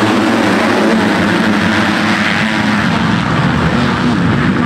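A pack of motocross bikes racing together at full throttle, many engines blending into one loud, steady sound.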